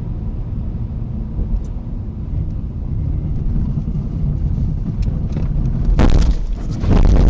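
Steady low road and engine rumble heard from inside a car on a snowy road. About six seconds in, and again near the end, loud noisy crashes as the car goes off the road into snow and trees.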